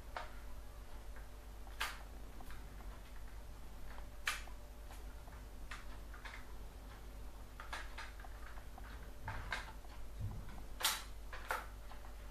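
Plastic case panels of an Acer 3680 laptop clicking and creaking as fingers pry at the seams: scattered sharp clicks a second or two apart, the loudest near the end. The panels will not part because a screw is still holding them together.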